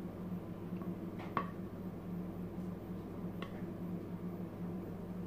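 A spoon spreading thick white sauce over the food in a baking dish: soft squishing, with two light clicks of the utensil against the dish, over a steady low electrical hum.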